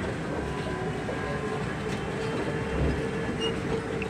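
Airport Skytrain people mover running, heard from inside the car: a steady rumble with a constant hum.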